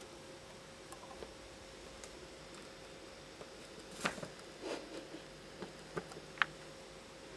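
A kitten scuffling with a sock on a tiled floor: scattered soft taps, scrapes and rustles, busier and louder from about four seconds in.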